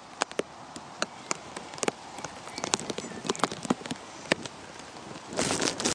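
Heavy rain: raindrops tapping irregularly on a plastic bag wrapped around the camera, several sharp taps a second over a light hiss, with a short rustling burst near the end.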